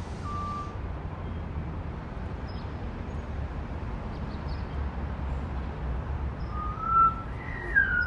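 African grey parrot whistling: a short steady whistle just after the start, then louder gliding whistles about seven and nearly eight seconds in. A steady low rumble runs underneath.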